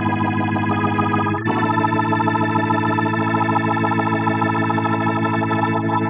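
Kurzweil K2700 stage keyboard playing a Hammond B3-style organ patch with rotary-speaker effect: sustained two-handed chords, changing to a new chord about a second and a half in.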